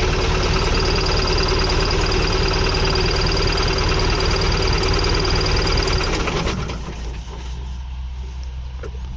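Combine harvester's diesel engine running loud with a steady high whine over it. About six and a half seconds in, the sound drops to a lower, quieter rumble.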